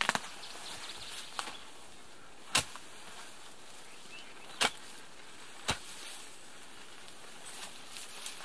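A mattock chopping into root-filled soil: five sharp, separate strikes one to two seconds apart, the loudest two about two and a half and four and a half seconds in.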